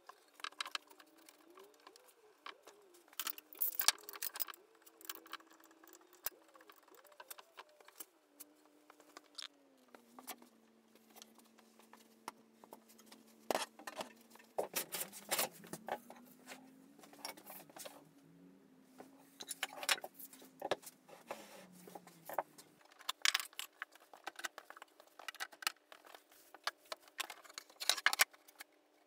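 Irregular workshop handling noises: sharp knocks, taps and light metallic clatters of clamps, tools and wooden boards being handled on a wooden workbench, in quick clusters with short pauses between.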